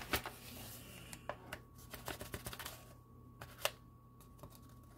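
Light scattered clicks and taps of a measuring spoon against a plastic tub and a ceramic bowl as powder is scooped and tipped into the bowl, with one sharper tap a little past halfway.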